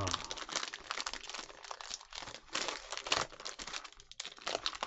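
A foil-and-plastic wrapper of a 2020 Donruss Optic football fat pack crinkling and tearing as it is ripped open by hand, in a continuous run of sharp crackles.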